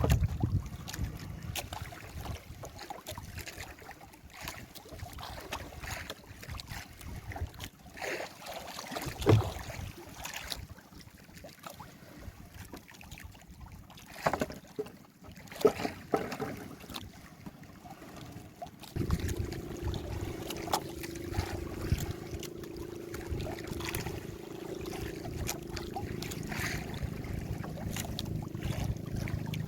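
Small fishing boat at sea: water and wind noise with scattered sharp knocks, then a steady low hum that starts about two-thirds of the way through.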